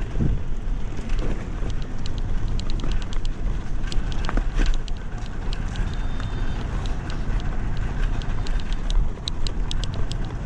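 Wind rumbling steadily on the camera microphone while a bicycle is ridden, with frequent small irregular ticks and rattles from the bike.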